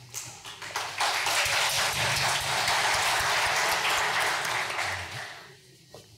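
Audience applauding: the clapping swells up about a second in, holds steady, and dies away near the end.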